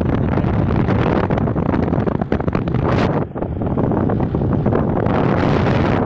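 Wind buffeting the microphone of a phone filming from a moving motorcycle, with engine and road noise underneath. The wind gusts harder about three seconds in and again near the end.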